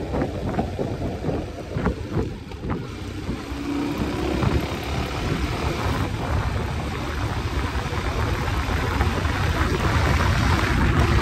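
Motorcycle underway on the road, its engine running under a heavy buffeting of wind on the microphone, growing louder toward the end.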